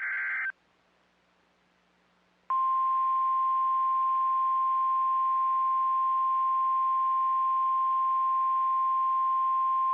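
The tail of a SAME digital header burst, a brief warbling data screech, then, after about two seconds of near silence, NOAA Weather Radio's 1050 Hz warning alarm tone: one steady, unbroken high tone. It signals that a warning broadcast follows.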